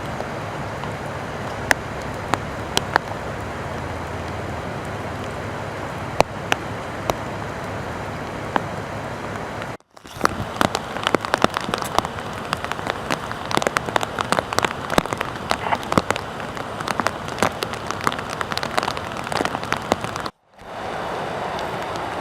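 Steady rain falling, with drops striking a nearby surface as scattered sharp ticks; after an abrupt cut about ten seconds in, the ticks come much thicker and faster.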